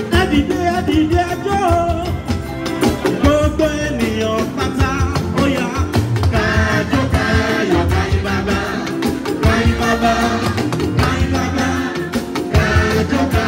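Music with singing over a steady, dense drum beat.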